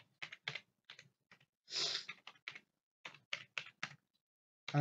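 Typing on a computer keyboard: quick, uneven runs of keystrokes with a short pause in the middle.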